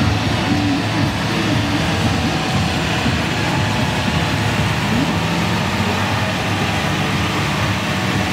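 Monster truck engines running in a steady, loud drone as the trucks drive up to the start line.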